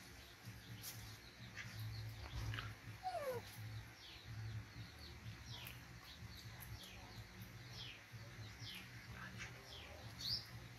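Repeated short, high chirps, each falling in pitch, a few a second, with one lower falling squeak about three seconds in and a sharper chirp near the end.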